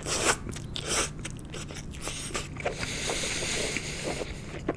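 Close-miked chewing of salmon sushi: wet mouth clicks and smacks, loudest about a third of a second and one second in. A steady hiss runs under the second half.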